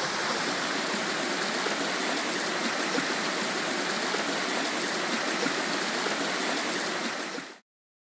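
A small waterfall and rocky stream, a steady rush of running water that fades out quickly near the end.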